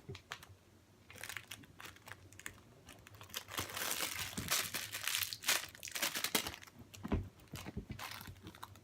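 Crinkling and rustling as a pile of squishy toys is rummaged through, loudest in the middle, with a few small knocks.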